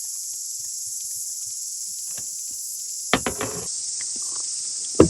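Steady high-pitched chorus of insects, with a quick cluster of knocks about three seconds in and a sharp knock near the end.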